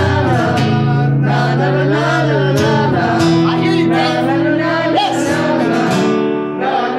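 A man singing live to his own acoustic guitar, the sung melody sliding up and down over held guitar chords that change every second or two.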